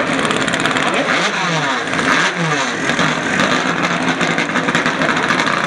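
Several Turismo Carretera race car engines running on the grid, revved up and down, with many rises and falls in pitch overlapping.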